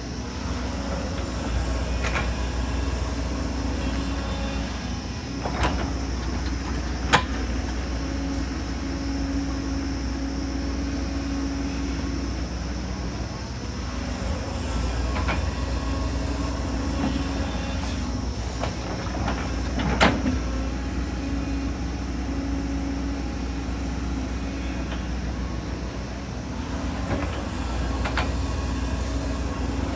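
Excavator's diesel engine running steadily under load, its tone rising and falling as the machine works, with a few sharp knocks: the loudest about seven seconds in and again about twenty seconds in.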